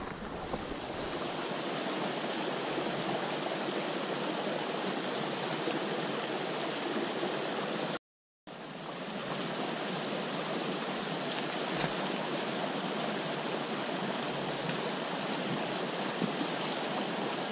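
Stream water flowing steadily, an even rushing sound, broken by a sudden half-second dropout about eight seconds in.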